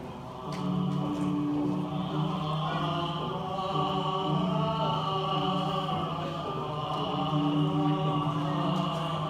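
Male vocal ensemble of six singing unaccompanied in harmony, holding long sustained chords that change every second or so.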